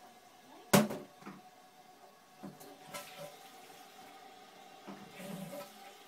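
Toilet tank flush mechanism being handled: one sharp, loud clack about a second in, then lighter knocks and brief sounds of water in the tank near the end.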